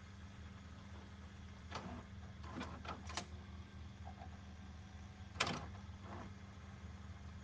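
Faint steady low hum with a handful of short clicks and knocks scattered through it, the loudest about five and a half seconds in.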